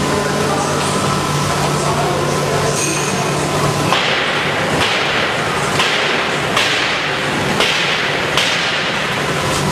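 Popcorn machine running: a steady low hum, then from about four seconds in a rhythmic swishing with a light knock roughly once a second.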